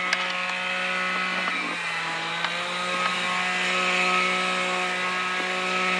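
A small engine-driven power tool running steadily at a constant pitch, its buzzing drone carrying many overtones.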